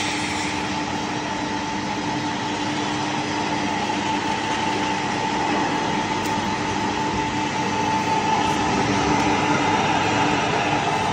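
Small flat-die poultry feed pellet mill running under load, pressing feed mash into pellets: a continuous mechanical running noise with a steady hum.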